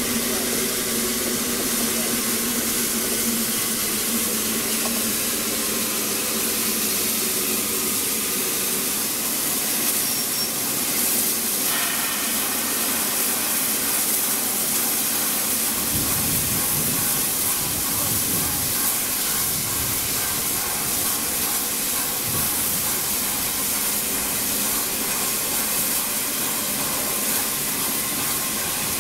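Standing steam locomotive 60163 Tornado, an LNER Peppercorn A1 Pacific, hissing steadily as steam escapes from its front end and from its top.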